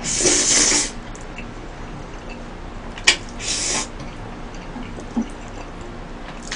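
A man slurping tomato spaghetti off chopsticks, close to the microphone: one slurp in the first second, then a sharp click about three seconds in, followed straight away by a second slurp.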